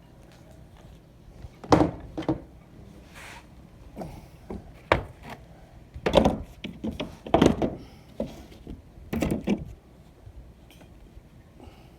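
A series of irregular knocks and thuds on wood, about seven in all, some coming in quick pairs.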